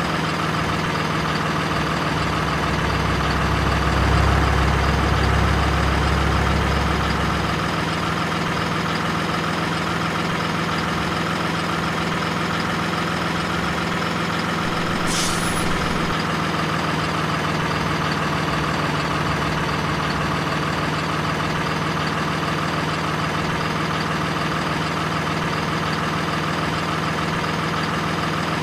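Diesel truck engine idling steadily, with a deeper, slightly louder rumble for a few seconds near the start. About halfway through there is one brief, sharp high sound.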